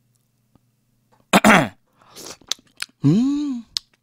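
Close-miked eating of noodles: a loud slurp about a second and a half in, then wet chewing clicks. Near the end comes a satisfied hummed 'mmm' that rises and falls in pitch.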